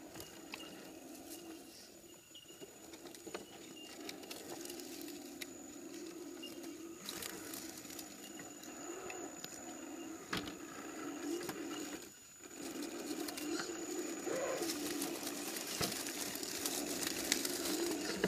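Axial SCX10 RC rock crawler's Novak Ballistic 18.5-turn brushless motor and geared drivetrain whining at crawling speed, its pitch wavering with the throttle. It grows louder as the truck comes closer, briefly lets off about two-thirds of the way in, and there are occasional clicks.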